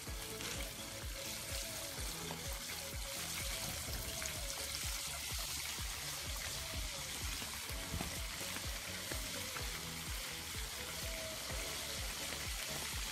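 Flour-dredged chicken pieces deep-frying in hot vegetable oil in a cast-iron pot, the oil bubbling and sizzling with a steady hiss.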